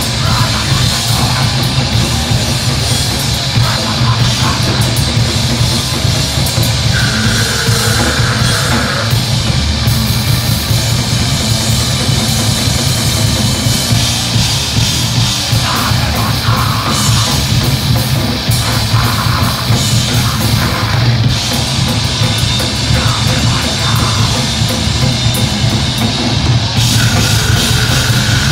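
Heavy rock band playing loud and live: a pounding drum kit and distorted amplified guitar, with a vocalist on a handheld microphone.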